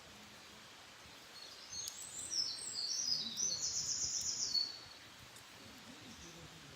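A wild songbird singing one high-pitched phrase of varied quick notes, about three seconds long, that ends in a rapid trill.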